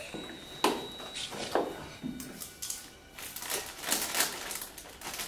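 Snack packaging crinkling and snacks being crunched, in a string of sharp crackling rustles that grow denser near the end.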